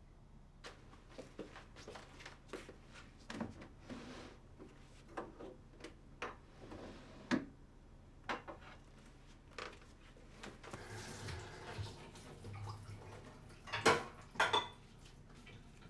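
Dishes and cutlery clinking and knocking at a kitchen sink: a scattered run of light clinks, a tap running for a second or two about two-thirds through, then two louder clatters close together near the end.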